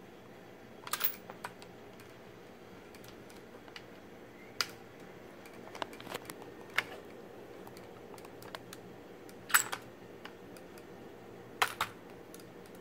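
Scattered sharp mechanical clicks and knocks, a dozen or so at irregular intervals and some in quick pairs, from handling a Tikka T3x bolt-action rifle's bolt and magazine.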